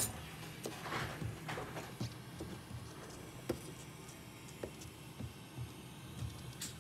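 Scattered light clicks and taps from small tools and parts being handled, irregularly every half second or so, the loudest right at the start, over a faint low hum.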